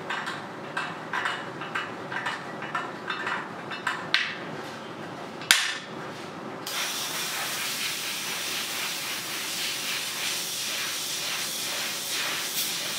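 Clicks and taps of hands working an airbrush compressor's pressure regulator and air fitting, with one sharp click about five and a half seconds in. About a second later a steady hiss of compressed air starts from the airbrush, turned up to full pressure and fed from the compressor's tank while the motor stays off.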